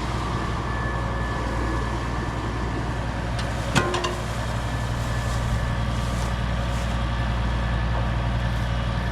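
A motor vehicle engine running steadily, with one sharp clank about four seconds in.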